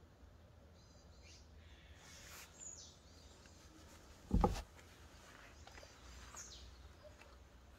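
Quiet outdoor ambience with a low steady rumble and a few faint bird chirps, each falling in pitch. A single dull thump about halfway through is the loudest sound.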